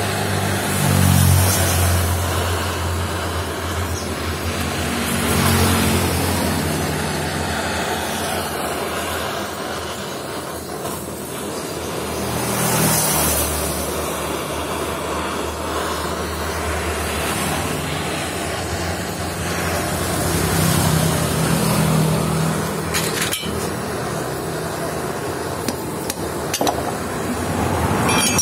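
A handheld butane gas torch burns with a steady hiss as it heats a scooter crankcase's bearing housing, expanding the housing so the crankshaft bearing can drop in. Motorcycles and cars pass by several times, their engines swelling and fading, and there is a single sharp click late on.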